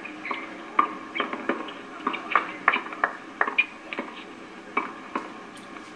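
Tennis balls struck by rackets during a doubles point at the net, mixed with players' footsteps on a hard court: an irregular series of sharp knocks and taps, several a second.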